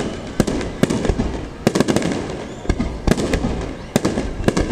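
Aerial fireworks shells bursting in quick, irregular succession: sharp bangs, some coming in close pairs or clusters, over a continuous rumble from the ongoing display.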